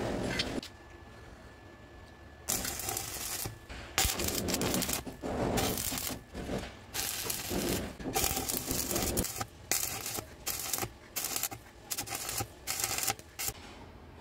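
Stick arc welding a twisted rebar ring onto a square steel tube. The arc crackles and hisses in a string of short tack-weld bursts, each under about a second, starting a couple of seconds in.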